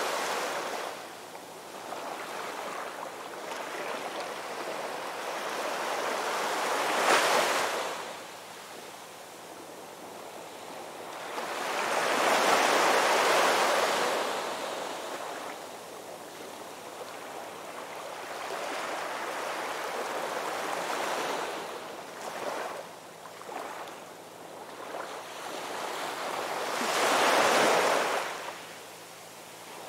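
Ocean surf breaking and washing up a sandy beach in slow, rising and falling swells, with three louder surges: about a quarter of the way in, around the middle, and near the end.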